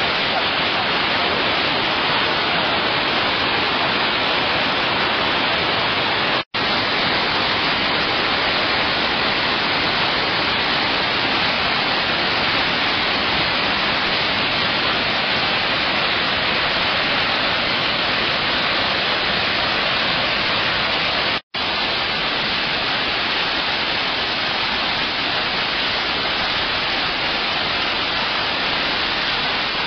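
Iguazu Falls: a loud, steady roar of falling water, cutting out for an instant twice.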